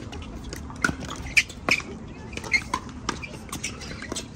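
A pickleball rally: paddles strike a hollow plastic pickleball in sharp pops at an irregular pace, with short high squeaks of sneakers on the hard court in between.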